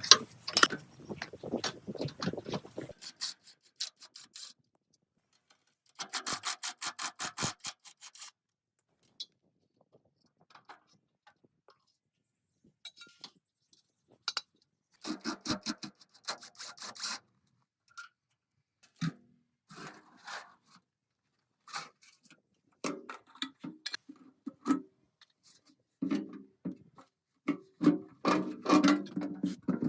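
Hand work on rusted metal parts: runs of rapid, even scraping strokes, like rust being brushed or filed, and scattered knocks and clinks of metal parts, heard in short separate bursts.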